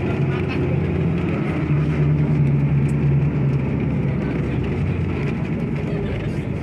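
Tour bus engine running with a steady low hum, heard from inside the cabin as the bus drives along; it grows a little stronger about two seconds in and eases near the end.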